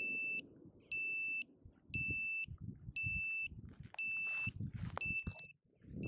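Lost-model buzzer on an Alien RR5 FPV quadcopter beeping about once a second, each beep about half a second long, marking where the downed quad lies. Footsteps approach from about two seconds in, with handling noise near the end as the quad is picked up.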